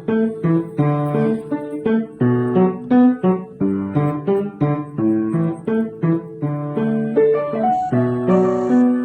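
Background instrumental piano music, notes struck in a steady, even rhythm.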